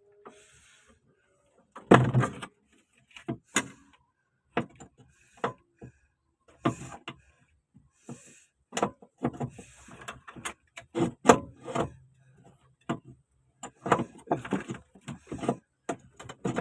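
Irregular metallic knocks and clinks of hand tools and parts being handled during clutch hydraulic repair work, some of them sharp and loud.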